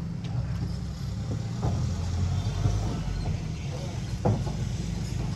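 Small motorbike engine running steadily, with a couple of short knocks about a second and a half in and near the end.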